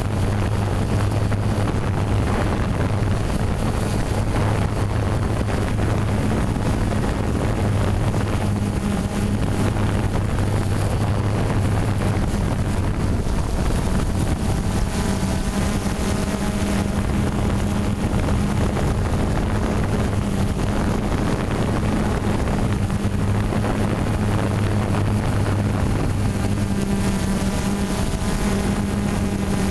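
Quadcopter drone's motors and propellers buzzing steadily, the pitch of the hum shifting a few times as it manoeuvres, with some wind on the microphone.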